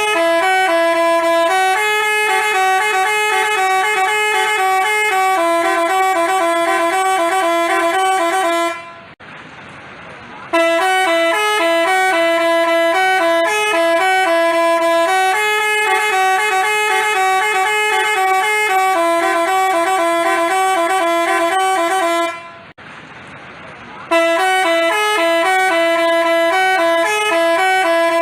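Telolet basuri multi-tone horn playing a fast tune of quickly switching horn notes. It stops twice for under two seconds each time, leaving only a quieter hiss before the tune starts again.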